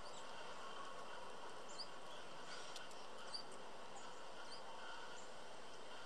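Small backyard songbirds giving short, high chirps, about half a dozen spread over a few seconds, faint over a steady background hiss.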